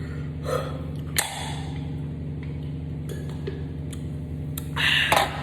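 A can of hard seltzer being shotgunned: a sharp click about a second in as the tab is opened, then quiet gulping with faint ticks. Near the end comes a loud breathy gasp as the drinker finishes.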